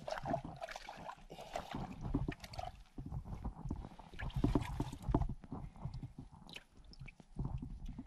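Water sloshing and splashing with irregular knocks and rustles as a hand rummages among live fish in a plastic bag of water.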